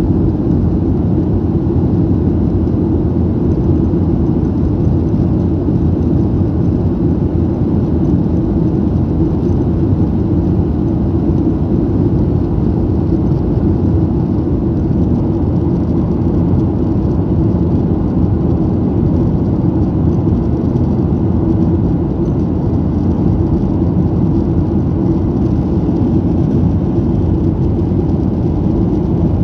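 Steady low rumble of engine and airflow noise inside the cabin of a Boeing 737-800 in flight, from its CFM56-7B turbofans and the air rushing past the fuselage.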